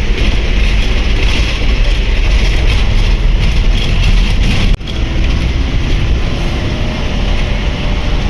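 Steady road-vehicle noise: a loud low engine and road rumble with hiss over it, broken by a brief dip about five seconds in.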